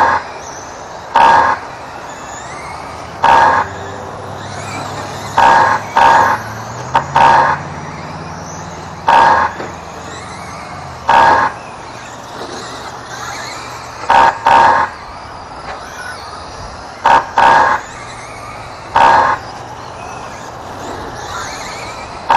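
Short electronic beeps from the lap-counting system, about a dozen at uneven intervals, each one marking an RC truck crossing the timing line. Between the beeps there is a fainter steady hum from the trucks running.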